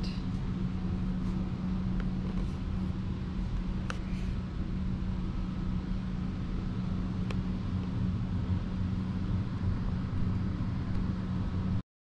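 Steady low mechanical hum with a constant droning tone, a few faint ticks over it; the sound cuts out for a moment near the end.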